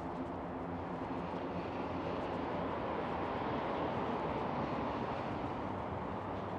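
Street traffic: a passing vehicle's engine hum and tyre noise, swelling to a peak about halfway through and then easing off.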